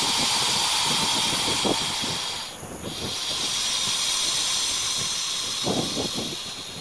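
Anaconda breathing with a steady hiss of air, two long breaths with a short break about two and a half seconds in.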